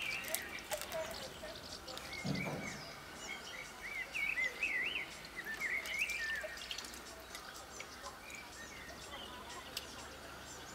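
Small birds chirping and warbling, with light splashes and drips of water as a small net is dipped in a metal tub of water.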